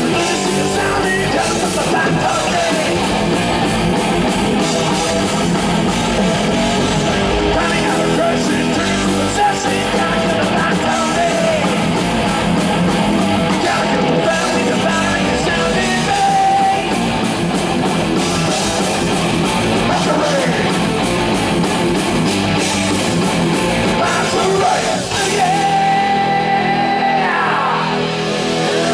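A heavy metal band playing live: distorted electric guitars, bass guitar and a drum kit, with a singer. Near the end a guitar holds a long note and bends it.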